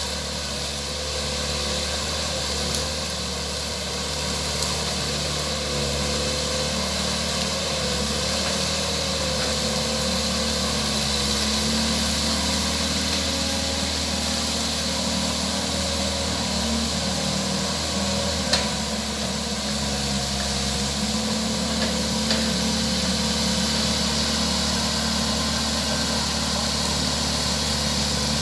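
Excavator's diesel engine running steadily, with a faint wavering whine over it and a single sharp knock about two-thirds of the way through.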